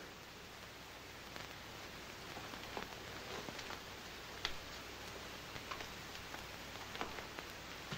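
Quiet room tone: a steady hiss with scattered faint clicks and small knocks, roughly one a second, the clearest about halfway through.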